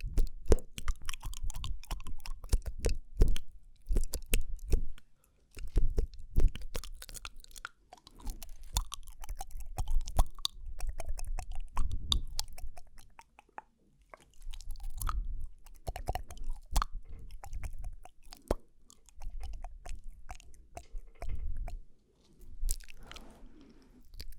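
Close-miked ASMR mouth sounds: rapid wet clicks, smacks and tongue noises in bursts of a second or two, with short pauses between them.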